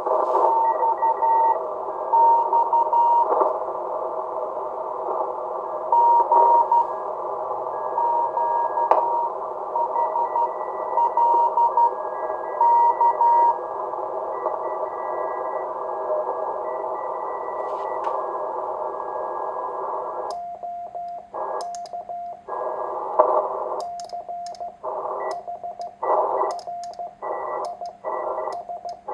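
Morse code (CW) on the 40-metre band from a homebuilt 1Watter QRP transceiver: a keyed code tone over band hiss narrowed by an audio filter, with fainter neighbouring signals sounding above it. About twenty seconds in, the operator starts sending. The receiver hiss drops out with each keyed character under a lower sidetone, with sharp clicks as it switches.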